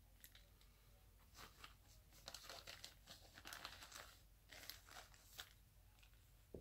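Faint rustling and crinkling with light clicks, in uneven bursts through the middle few seconds, as small plastic toy figures are handled and sorted.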